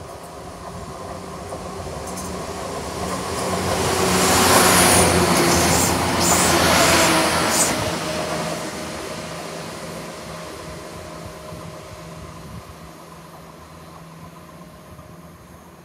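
CrossCountry Class 170 Turbostar diesel multiple unit passing close by. The drone of its underfloor diesel engines and the wheel and rail noise build to a peak about five seconds in, with the engine note dropping in pitch as it goes past, then fade as it runs away.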